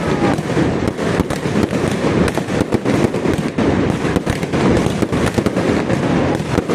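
Fireworks display: a continuous rapid barrage of bangs and crackling with no pause.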